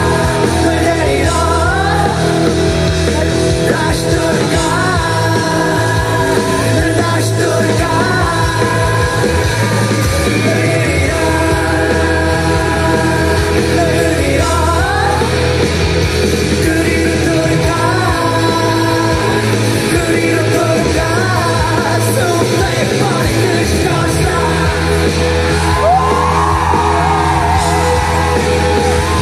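A live rock song: a man singing loudly into a microphone over electric guitar.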